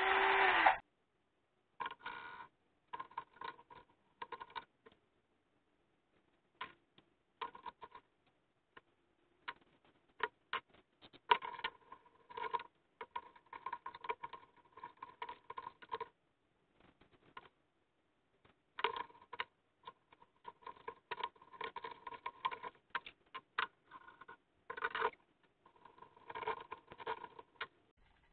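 Handling noises from assembling a mini cordless chainsaw: scattered clicks, scrapes and rattles of its plastic body, metal guide bar and chain being fitted together, in clusters with short pauses. A short louder burst opens it.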